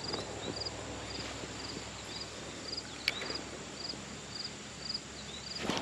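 A cricket chirping steadily, short three-pulse chirps about twice a second, over a quiet steady background, with a single sharp click about three seconds in.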